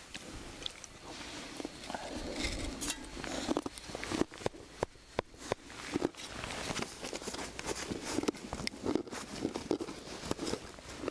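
Irregular sharp clicks, crackles and rustling of outdoor gear being handled close by.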